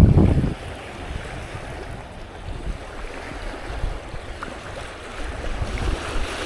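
Wind buffeting the microphone, loudest in the first half second, then a steady wash of wind and shallow water.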